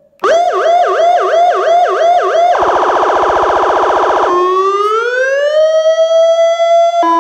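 Aosen Q7 electronic car siren cycling through its tones. It plays a fast warbling yelp of about three to four sweeps a second, then a harsh buzzing horn tone for nearly two seconds, then a slow rising wail that levels off. Near the end a steady two-tone note begins.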